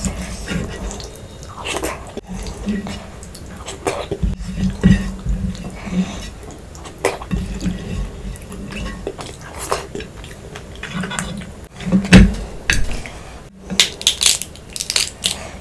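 Close-up eating sounds from a meal of crab curry, fried fish and rice: irregular wet smacking and chewing, mixed with clinks and knocks against a plate. The loudest knock comes about 12 seconds in.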